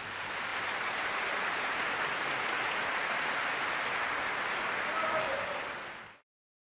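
Large theatre audience applauding: the clapping swells in the first second, holds steady, then cuts off abruptly about six seconds in.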